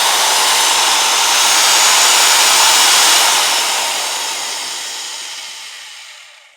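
Power drill running with a steady, hissing whir that fades away over the last few seconds and stops.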